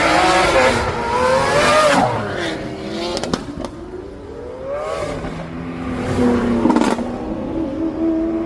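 Cars accelerating hard away, their engines revving. The pitch glides up and down for the first two seconds, a second rev climbs about halfway through, and a steadier engine hum follows.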